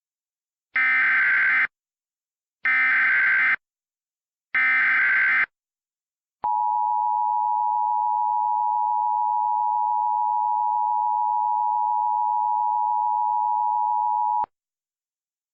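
Emergency Alert System header for a tornado warning: three one-second bursts of buzzy SAME digital data tones, then the steady two-tone EAS attention signal held for about eight seconds before it cuts off sharply.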